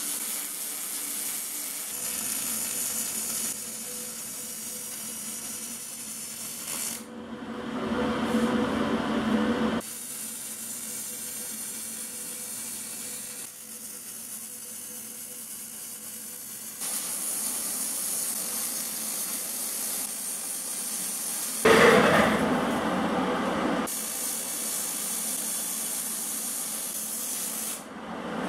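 MIG/MAG welding arc on steel sheet metal, a steady hiss laid down in several separate runs. The runs change abruptly in loudness and tone, and the loudest run comes about three-quarters of the way in.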